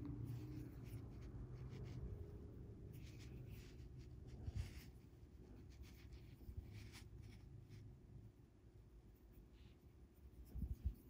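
Faint scratching and rustling of fingers handling and sliding monofilament fishing line while tying a knot, over a low steady hum, with a soft thump near the end.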